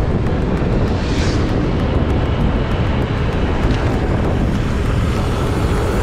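Steady rush of wind and road noise from a Yamaha motor scooter ridden along a road at speed, with the engine running under it.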